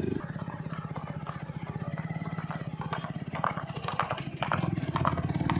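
An engine running with a rapid, even beat, getting louder toward the end, with sharp hoof clops on the road through the middle.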